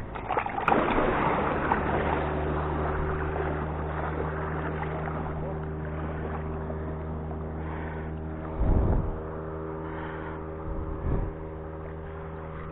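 A motorboat engine running steadily with a low hum. A rush of noise rises over the first couple of seconds, and there are two short low thuds in the last third.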